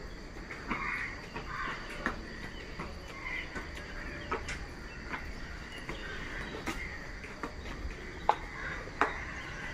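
Insects chirring steadily in a high, even drone, with faint scattered ticks and clicks throughout.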